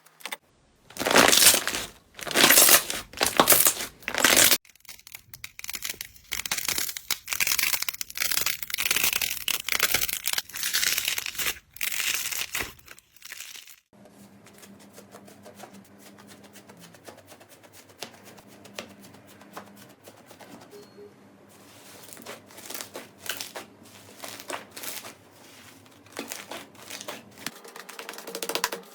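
Slime being squeezed and pressed by hand, giving a dense run of small clicks and pops. The first dozen seconds are loud; after a cut, a quieter stretch of finer clicks grows louder again near the end.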